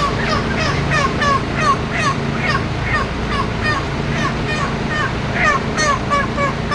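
Broiler chickens calling: short, falling peeping calls, several a second, over a steady low hum.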